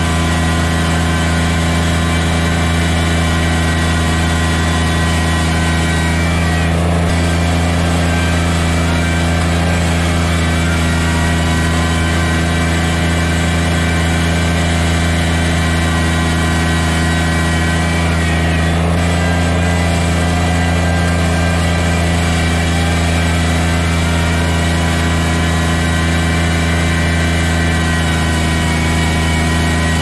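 Kubota BX sub-compact tractor's three-cylinder diesel engine running steadily while the tractor pushes snow with its front loader, with a faint whine gliding up and down now and then.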